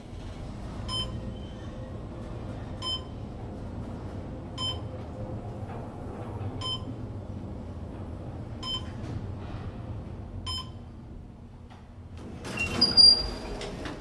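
Schindler 500A traction elevator travelling down with a steady low running hum, and a short electronic beep about every two seconds as the car passes each floor, six in all. Near the end a louder, higher chime sounds as the car arrives at the bottom floor.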